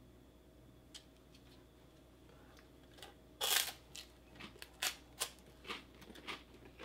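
A bite into a crispbread topped with luncheon meat: one loud crunch about three and a half seconds in, then a run of smaller dry crunches as it is chewed.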